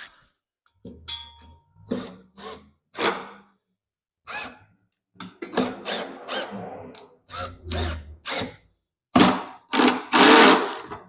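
Power drill driving screws into wood in a series of short trigger bursts, the longest near the end.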